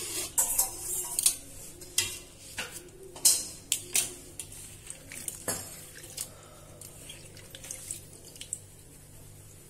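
Hands moving through water in a stainless steel bowl, lifting out chopped capsicum pieces: splashing and dripping, with sharp knocks and clinks against the steel. The knocks come thick and fast at first, then thin out after about six seconds.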